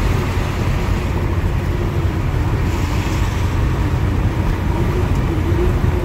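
Steady, loud low rumble of road and wind noise at freeway speed, heard from inside a moving car.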